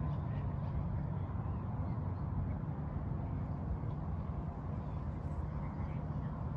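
Steady low outdoor rumble with a faint steady hum.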